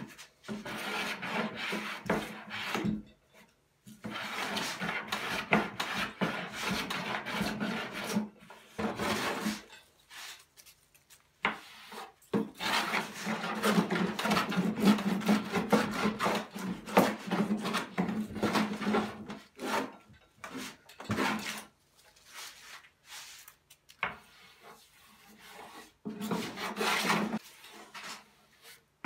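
Metal hand plane shaving a wooden board, a series of rasping strokes, some a second long and some several seconds, with short pauses between passes.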